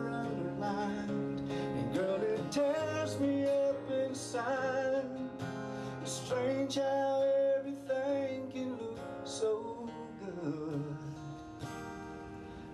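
A man singing live while strumming an acoustic guitar, performing a country song.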